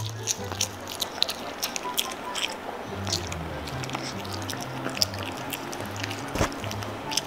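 Pomeranian chewing and crunching a chocolate biscuit close to the microphone, a run of small crisp crunches, over background music with a low repeating bass line.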